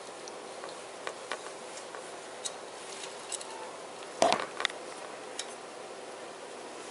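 Faint scattered clicks over a steady hiss, with a brief louder clatter of small knocks and rustling about four seconds in.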